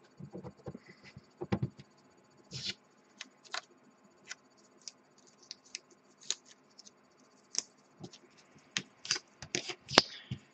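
Hands working blue masking tape onto a painting stick: scattered small clicks, scratches and tape rustles, a little louder near the end.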